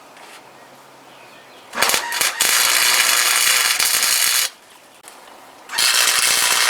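Wire-feed welder laying two beads: a crackling start about two seconds in, then a steady hiss for a couple of seconds, and a second burst near the end. The wire is feeding evenly since a C-clamp was added on the feed roller.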